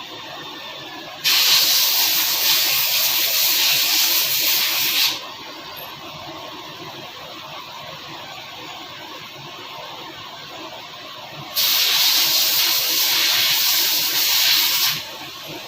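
A pressurised jet hissing in two long blasts of about four and three and a half seconds, each starting and stopping abruptly, typical of a blow gun or spray can used to clean engine parts during an overhaul.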